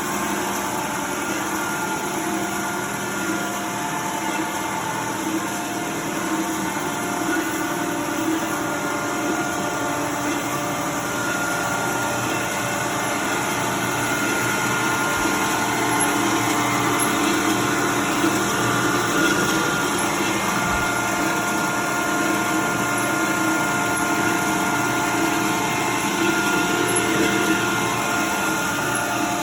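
Kalamazoo horizontal bandsaw running: a steady machine hum with a few held whining tones, getting a little louder about halfway through.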